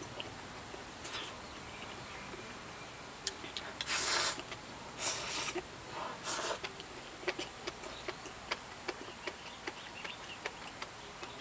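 A person eating noodles and hot pot with chopsticks: three short noisy slurps about four, five and six and a half seconds in, with chewing and small mouth clicks between.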